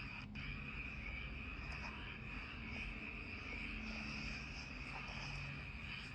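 Steady night chorus of crickets and frogs, a continuous high trilling, with a low rumble underneath.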